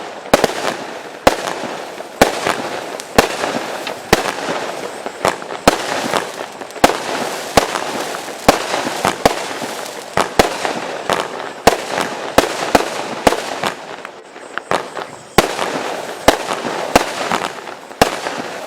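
A 35-shot consumer firework cake with 25 mm tubes firing its shots one after another, about one sharp bang a second, with dense noise filling the gaps between the bangs.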